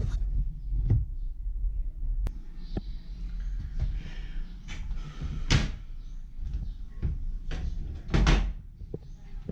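Knocks and clatters of a washing machine's lid and door being handled, with rustling in between, as the washed clothes are got out. The loudest clatters come about halfway through and again near the end.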